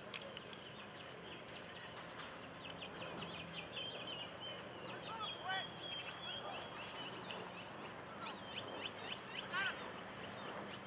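Birds chirping and calling, many short high calls overlapping in quick runs, over a faint steady low hum.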